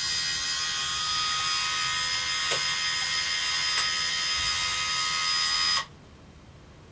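Motorized curtain-track motor whining loud and steady as it pulls the drapes closed, then cutting off abruptly near the end.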